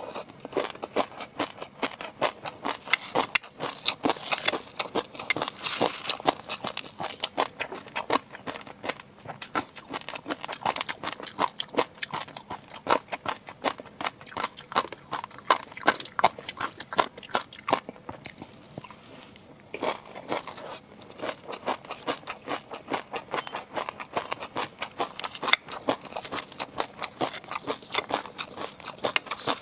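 Close-miked eating: a person biting and chewing seafood, with rapid wet clicks and crunches that ease off briefly about two-thirds of the way through.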